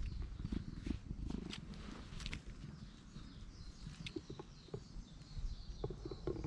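A cat purring steadily, with scattered faint clicks.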